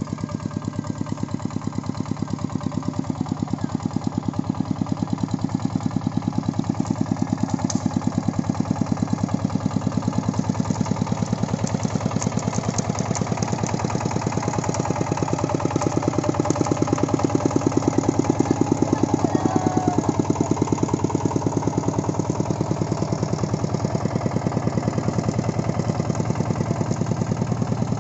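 Single-cylinder diesel engine of a two-wheel walking tractor (công nông) chugging steadily as it pulls a trailer loaded with rubber-wood firewood. It grows somewhat louder partway through, then settles again.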